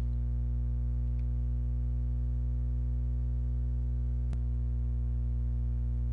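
Steady electrical hum with many overtones, unchanging throughout, with a single sharp click about four seconds in.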